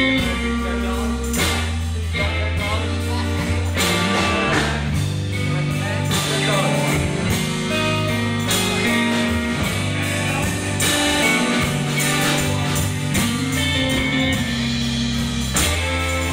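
Live rock band playing: two electric guitars, electric bass and drum kit, with steady bass notes under changing guitar chords.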